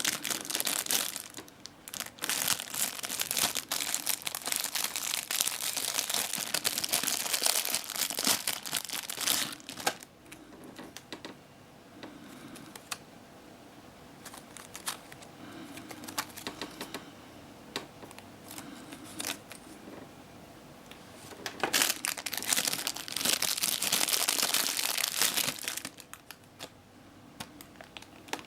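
Plastic packaging crinkling and rustling as it is handled and opened. It comes in two long spells, the first for about ten seconds and the second near the end, with quieter clicks and handling noise between them.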